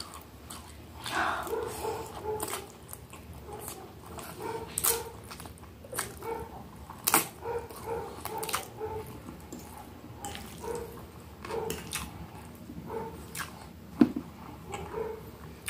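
Close-up eating sounds: chewing and crunching of a breaded cheese milanesa and noodles, with many short sharp crackles and one louder click about 14 seconds in. Short, repeated whining tones run among the chewing sounds.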